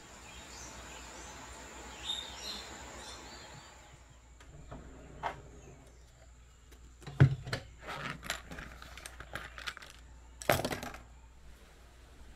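Steady rain hiss with a few faint bird chirps, then a scattered run of sharp clicks and knocks in the second half, the loudest near the end.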